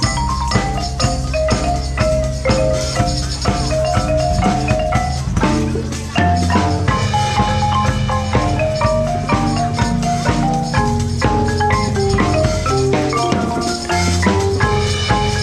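Marimba played fast, with quick runs of mallet notes over held low notes, and percussion hits keeping the beat. The music shifts to a new section about six seconds in.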